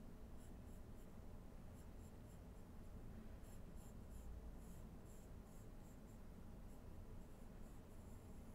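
A Staedtler Mars Lumograph graphite pencil scratching faintly across drawing paper in a run of short, irregular strokes as lines are sketched.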